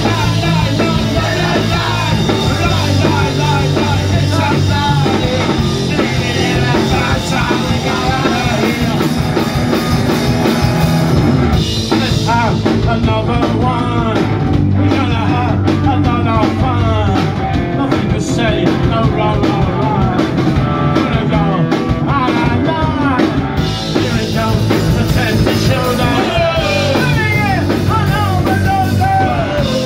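Punk rock band playing live: distorted electric guitars, bass and drum kit, with a male lead vocal.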